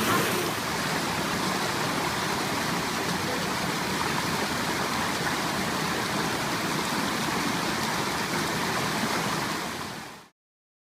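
Coban Rondo waterfall's water rushing steadily, fading out to silence near the end.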